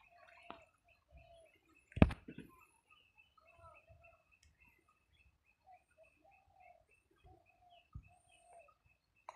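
Birds calling in the background: many short repeated low notes, with a thin, higher, steady chirping behind them. A sharp knock about two seconds in is the loudest sound, and a fainter one comes near the end.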